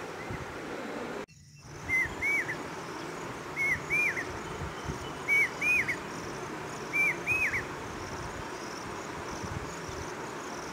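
Insects chirring steadily at a high pitch, with a bird repeating a short two-note whistled call four times, about one and a half seconds apart.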